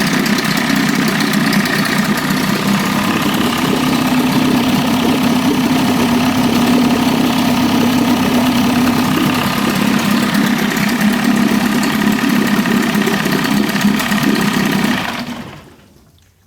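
Rebuilt 1981 Evinrude 25 HP two-cylinder two-stroke outboard running steadily at low speed during its break-in. The engine cuts out about fifteen seconds in and dies away over about a second.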